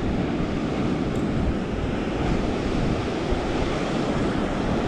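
Breaking surf and foaming white water rushing steadily, with strong wind buffeting the microphone.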